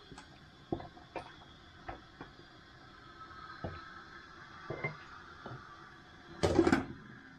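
Scattered light clicks and knocks of cooking utensils against a pot, with a louder clatter about six and a half seconds in.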